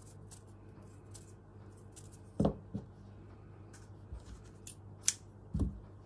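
Scissors snipping a length of brown embroidery thread, a run of small sharp clicks with the loudest snip about five seconds in. A few soft thumps of handling on the work surface, about two and a half and five and a half seconds in.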